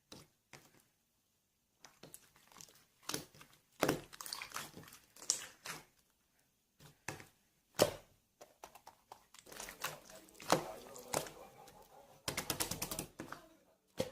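Irregular crinkling and tapping, with sharp clicks that come thicker in the second half and a rapid run of clicks near the end.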